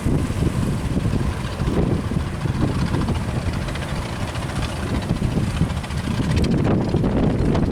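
Strong wind buffeting the microphone, a constant gusting low rumble.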